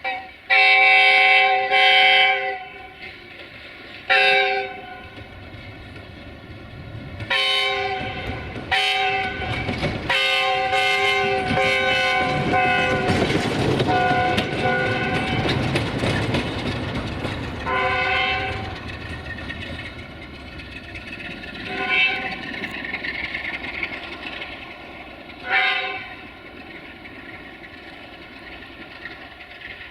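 060-DA (LDE2100) diesel-electric locomotive sounding its horn in a series of blasts, two long ones right at the start, then short and long blasts spread through the rest. As it passes, the Sulzer diesel engine and the wheels on the rails rise to a loud rumble in the middle, then fade.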